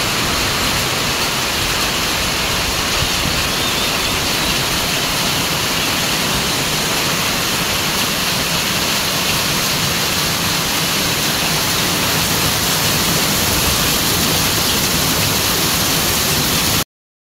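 Heavy rain pouring steadily down on trees and foliage, a dense even hiss. It cuts off suddenly near the end.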